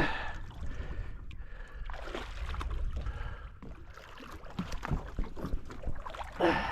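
Water sloshing and gurgling around a small fishing boat's hull, with light knocks and clicks of fishing gear being handled while a hooked queenfish is played near the boat.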